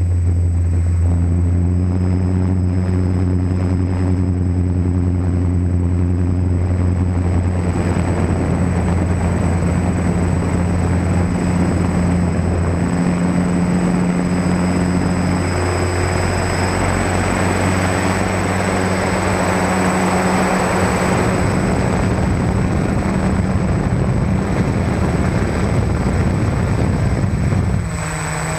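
DJI F450 quadcopter's four SunnySky 980KV brushless motors spinning 10-inch props in flight, heard from the camera on board: a steady multi-pitched drone whose tones shift as the throttle changes. A rushing wind and prop-wash noise thickens through the middle, and the drone dips briefly in level and pitch near the end.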